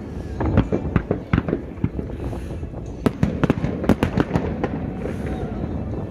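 Fireworks bursting: rapid runs of sharp bangs and crackles, one cluster in the first second and a half and a denser one about three to four seconds in, over a steady low rumble.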